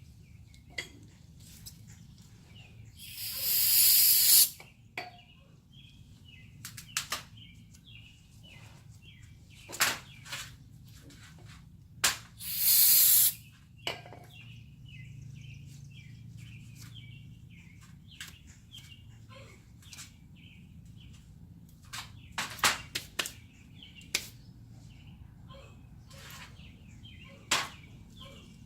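Aerosol brake cleaner sprayed in two bursts of about a second and a half each, a few seconds in and near the middle, with scattered clicks of parts and tools between. Birds chirp throughout.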